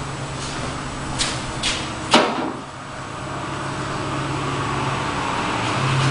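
1967 Chevelle engine idling steadily on a new carburetor while its choke is being adjusted, with four sharp clicks in the first two seconds or so, the last and loudest about two seconds in. Just after it the sound dips briefly, then slowly builds back up.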